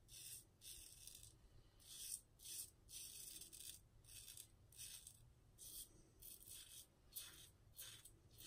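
Double-edge safety razor (Merkur 34C with a Treet Black Carbon blade) scraping through lather and stubble on the neck and chin. It goes in short, faint strokes, about two a second.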